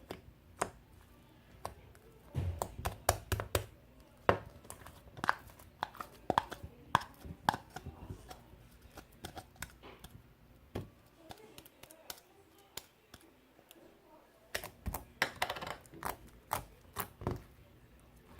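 Irregular clicks and taps, as of small objects being handled.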